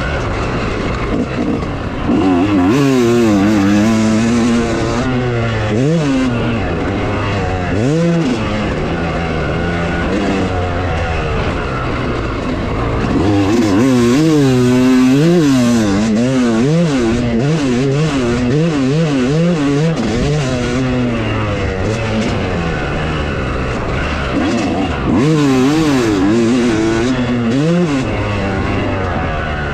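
Dirt bike engine revving hard and backing off over and over, its pitch rising and dropping repeatedly, with several longer, louder pulls.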